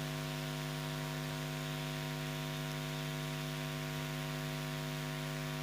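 Steady electrical mains hum with a faint hiss underneath, unbroken and unchanging.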